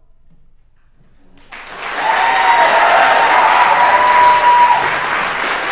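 Near silence for about a second and a half, then an audience breaks into applause, with a few long, high calls ringing over the clapping.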